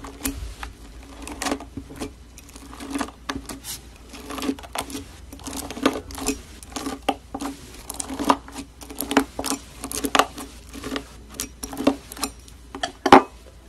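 Foam-bead slime (floam) being pressed and sliced with a metal blade, the foam beads crackling and popping in quick, irregular clicks.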